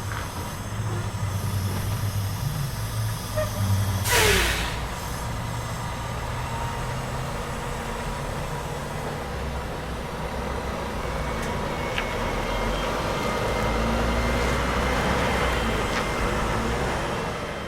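City street traffic: a steady low rumble of engines from passing and idling trucks and cars, with a short, loud hiss of air about four seconds in.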